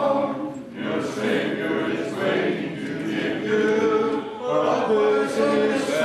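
A church congregation singing a hymn a cappella, men's and women's voices together without instruments, with short breaks between phrases.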